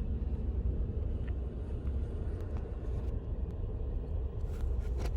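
Steady low road rumble inside a moving car's cabin, with a few faint clicks.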